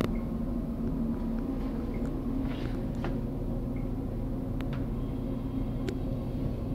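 Steady low hum of a small tiled restroom, with a few faint ticks.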